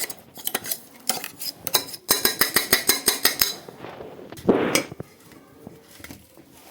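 A metal spoon clinking and scraping against a mixer-grinder jar as thick ground paste is scooped out. There are scattered clinks, a quick run of taps about two seconds in, and a short scrape a little later.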